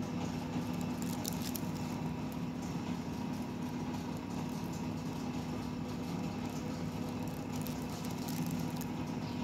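A steady low mechanical hum, with faint light clicks and crackles about a second in and again near the end.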